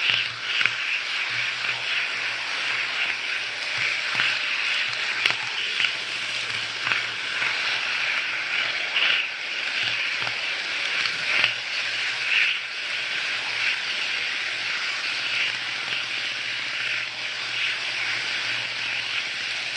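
An N-gauge model train running on its track close to the microphone: a steady hiss of small wheels and gearing on the rails over a low motor hum, with irregular clicks and rattles.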